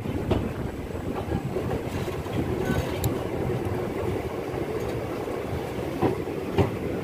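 Passenger train running along the track, heard from the coach's open doorway: a steady rumble with a few sharp knocks of the wheels and couplings.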